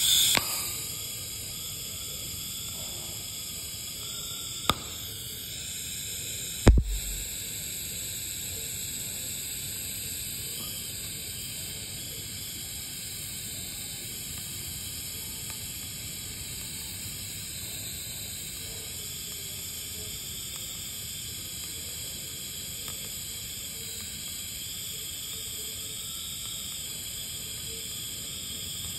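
TIG welding arc burning steadily with an even high-pitched hiss as filler weld is laid in. It strikes with a loud onset at the start, and two sharp clicks come about five and seven seconds in.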